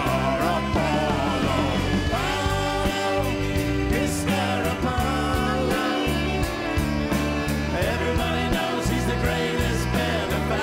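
A live rock band playing, with gliding melody lines over a steady bass and drum backing.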